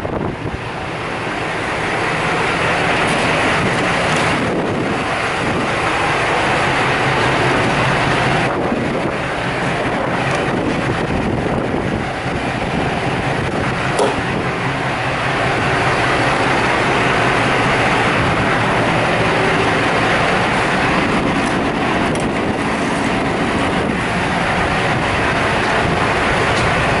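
Diesel semi-truck engine idling steadily under a continuous rushing noise at a fuel island, with a single light click about fourteen seconds in.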